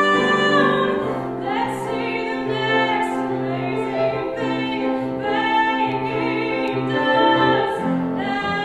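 A woman's voice singing a musical-theatre song with piano accompaniment. A long held note ends about a second in, followed by shorter sung phrases over repeated piano chords.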